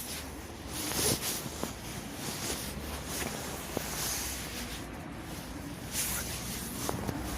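Outdoor ambience: a steady hissing, rustling noise that swells now and then, with a few brief faint squeaks.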